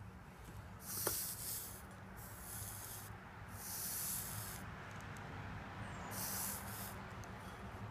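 Hot soldering iron tip sizzling against a damp cleaning sponge, four short hisses as it is wiped across it. The tip is freshly filed and is not taking solder.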